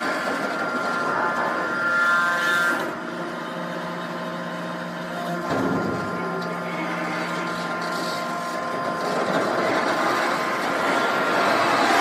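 Hydraulic scrap metal baler machinery running: a steady mechanical drone with whining tones that shift in pitch now and then, and a single knock about five and a half seconds in.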